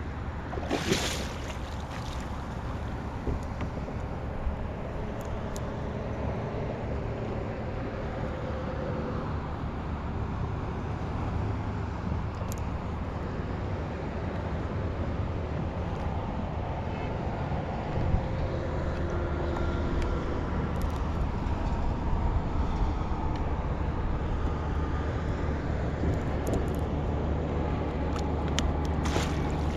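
Steady low rumble of wind on the microphone and water around a kayak, with a few faint knocks and clicks and one sharper knock partway through.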